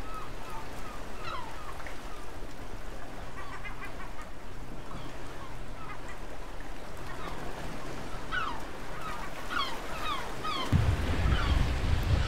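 A flock of water birds calling: many short overlapping calls, each sliding down in pitch. About ten and a half seconds in, loud wind buffeting the microphone and rushing water cut in suddenly, the sound of a sailboat under way on open water.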